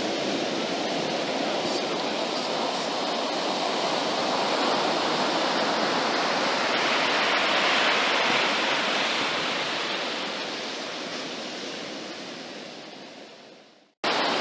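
Ocean surf breaking and washing up a sandy beach: a steady rushing that swells about halfway through, then fades out to silence near the end, where a different steady noise cuts in abruptly.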